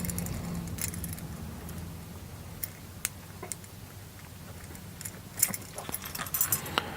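Small metal screws and hardware clicking and clinking as they are handled and threaded into the printer's metal plate: scattered light clicks, busier near the end, over a steady low hum.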